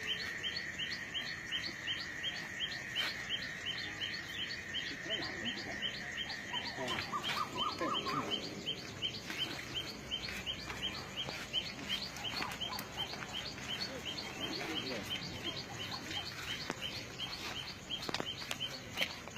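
Bird chirping: a long run of short, high chirps, about four a second, over a steady high tone that stops about a third of the way in.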